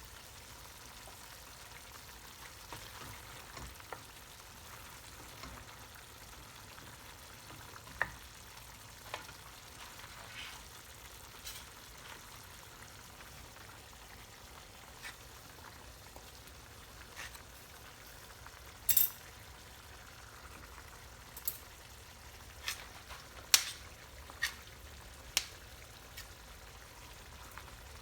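Food frying in a pan with a steady sizzle, and a utensil knocking sharply against the pan now and then, mostly in the second half as it is stirred.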